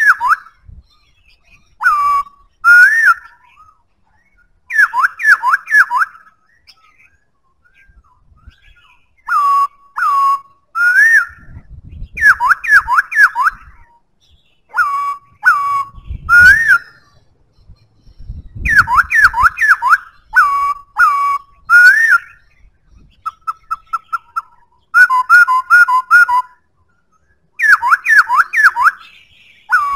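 Black-throated laughingthrush singing: loud, clear whistled phrases of quick up-and-down notes in short bursts with pauses between. A little past the middle comes a run of short, evenly repeated notes.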